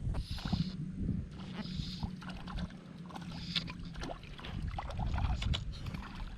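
Water splashing and lapping with scattered small knocks and clicks as a hooked fish is brought in, over a steady low rumble.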